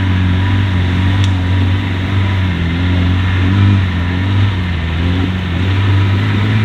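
Engine of an off-road 4x4 running steadily, a loud low drone whose pitch rises and falls slightly.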